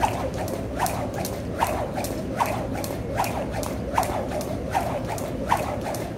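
Jump rope skipping, the rope ticking against the floor in an even rhythm, a sharper tick about every 0.8 s with lighter ones in between.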